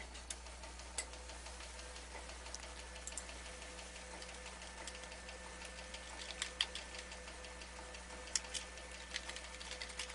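Computer keyboard keys clicking in irregular short runs as a name is typed, busiest about six and a half seconds in and again near the end, over a steady low hum.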